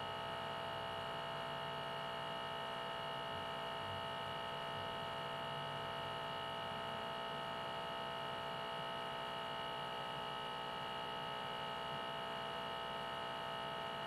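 Vacuum pump of a caffe depurato brewing apparatus running with a steady electric hum, holding the vessel at reduced pressure while the coffee refluxes.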